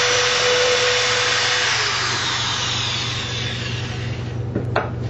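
Corded electric drill running at speed with its bit in wood, then released: the motor winds down with a falling pitch and stops about four seconds in. Two light clicks follow near the end.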